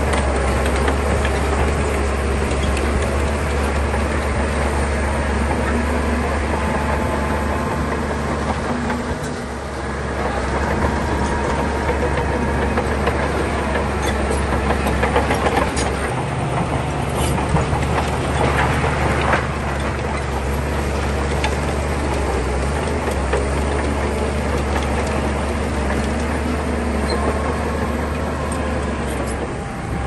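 Diesel engine of heavy earthmoving machinery running steadily under load, with scattered clanks and clicks. The sound dips briefly about a third of the way in, and the engine note changes about halfway through.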